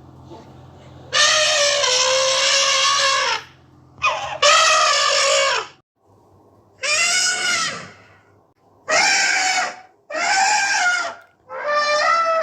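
African bush elephant trumpeting: about six loud, brassy calls in a row, the first two the longest at a second and a half to two seconds, the rest shorter and more clipped.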